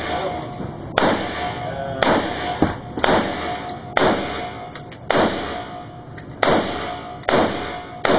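HK G3 battle rifle fired semi-automatically: about nine single shots, roughly one a second, each with a short echo.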